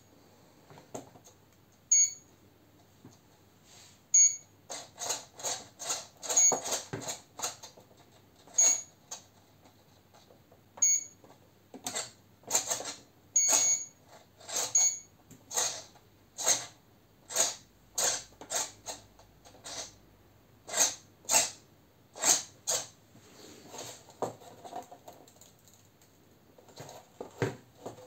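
Small metal-gear servos buzzing in many short strokes as the flying wing's elevons are driven from the radio transmitter, with a short high electronic beep about every two seconds through the first half.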